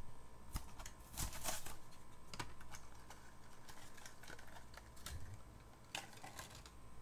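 Stiff clear plastic blister packaging of a die-cast toy car being pried open and handled by hand: irregular crinkles and sharp clicks, with a denser crackle about a second in and another click near the end.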